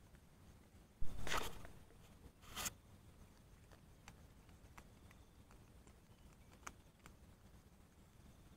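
Two short rustling swishes about a second and a half apart, the first the louder, then a few faint clicks: the handling of fish-shooting gear among bankside plants close to the microphone.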